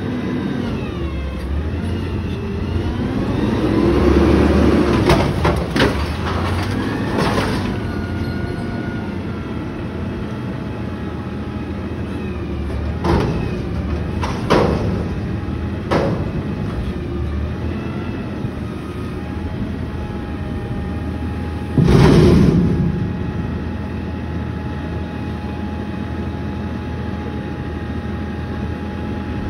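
Natural-gas McNeilus front-loader garbage truck running, its engine revving with rising whines as the hydraulic forks lift a dumpster over the cab. Sharp metal knocks come as the container is dumped and shaken at the top. A heavy bang about two-thirds of the way through is the loudest sound.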